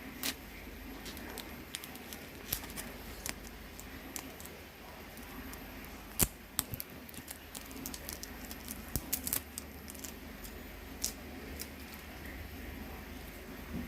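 Scattered small clicks and taps of objects being handled, irregular, with a sharper knock about six seconds in and a quick cluster of clicks around nine seconds.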